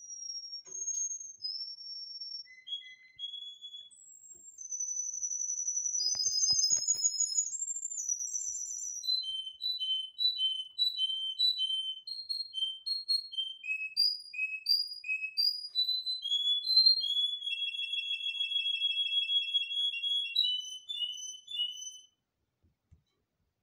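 Domestic canary singing a long, varied song of pure whistled notes. It opens with held high whistles, moves into phrases of short notes repeated about twice a second, then a rolling trill, and stops shortly before the end.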